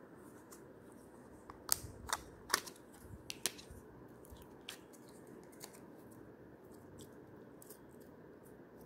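Sharp plastic clicks and taps as a small clear plastic slime tub is handled and opened, four loud ones between about two and three and a half seconds in, then fainter scattered clicks as the green slime is taken out, over a steady low hiss.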